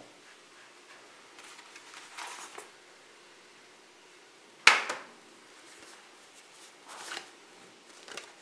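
Cardboard packaging and the underwear inside being handled by hand: light rustling of card and fabric, with one sharp tap about halfway through, the loudest sound.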